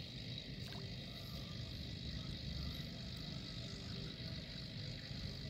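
Faint outdoor background: a low steady rumble with a steady high hiss above it, and a faint light tick or two.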